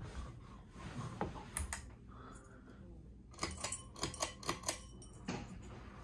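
Harbor Breeze Builder's Best 52-inch ceiling fan running, with a quick run of sharp clicks, about eight in a second and a half, a little past halfway.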